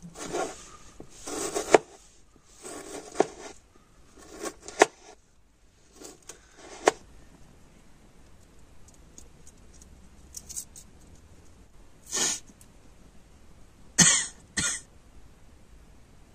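Kitchen knife chopping tomato on a plastic cutting board: a run of cuts, each ending in a sharp knock on the board, over the first five seconds, then a few faint clicks. Near the end, two short coughs.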